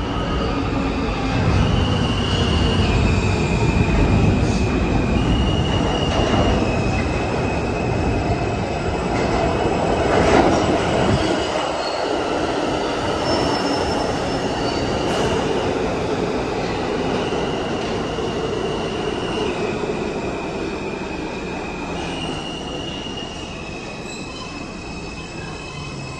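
Kawasaki R160 subway train pulling into the underground station and braking to a stop. A heavy rumble peaks about ten seconds in and then fades as the train slows. High-pitched tones step back and forth between two pitches throughout.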